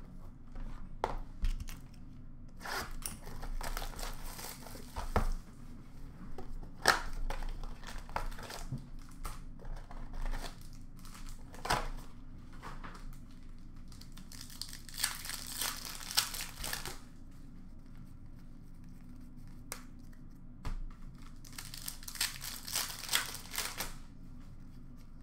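Hockey card pack wrappers being torn open and crinkled, with cards handled and tapped on the counter. There are scattered clicks and several longer bursts of crinkling, the biggest about two-thirds of the way through and again near the end.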